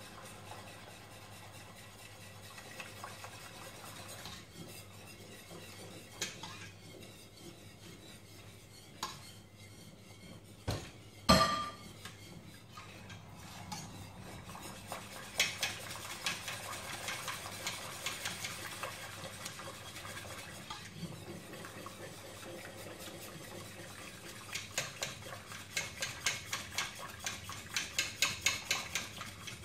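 A utensil stirring a starch-and-water mixture in a stainless steel pot, scraping and clinking against the pot. There is one sharp ringing clink about eleven seconds in, and near the end the strokes turn regular, about two a second.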